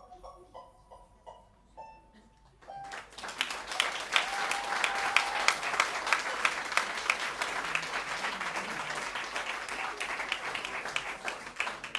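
The last notes of the music die away, and about three seconds in an audience breaks into applause that keeps going steadily, with a short held cheer early in the clapping.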